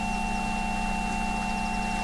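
Several steady electronic tones, Rife frequencies generated by software, sounding together at high, middle and low pitches without a break, over an even hiss of water. Faint bird chirps, with a quick high trill near the end.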